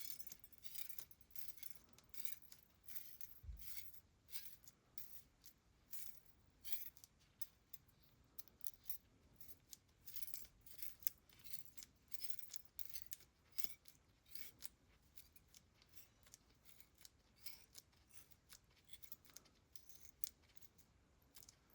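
Faint, irregular small clicks and ticks of a watch mainspring being wound by hand into a 3D-printed plastic mainspring winder, the steel spring coiling into the housing. The clicks come thick for most of the time and grow sparse near the end.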